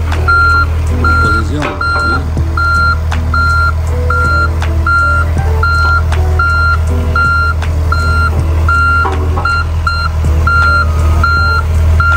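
Travel/backup alarm beeping about twice a second over the steady low running of a diesel engine, as the John Deere 50G compact excavator is worked.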